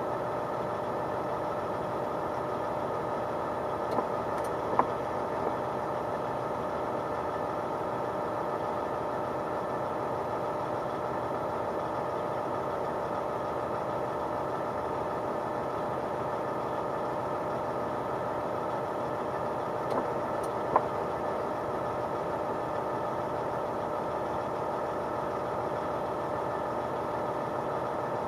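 Heavy truck's diesel engine running with a steady, even drone, heard from inside the cab. Two pairs of short clicks stand out, one pair about four seconds in and another about twenty seconds in.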